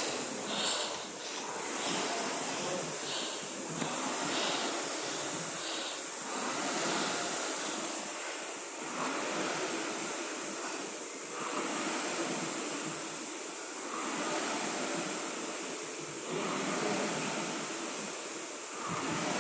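Air rowing machine's fan flywheel whooshing with each pull. It swells and fades about every two and a half seconds, at a steady stroke rate.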